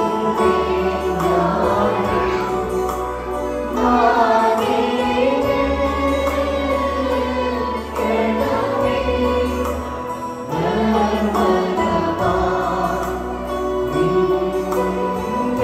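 Orthodox church choir singing a hymn, with instrumental accompaniment holding low bass notes that change every couple of seconds.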